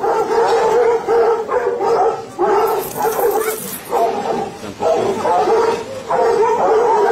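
A large pack of hunting hounds baying together, many voices overlapping in a loud, continuous chorus.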